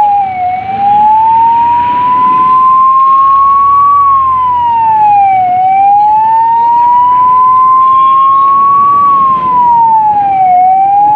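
Ambulance siren wailing: the pitch climbs slowly for about three and a half seconds, then drops quickly, repeating about every five seconds.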